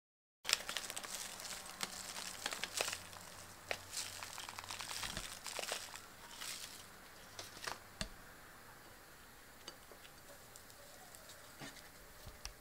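Crisp crinkling and rustling as salad leaves and toppings are handled on a pancake, with a couple of soft knocks; busiest in the first half, sparser later.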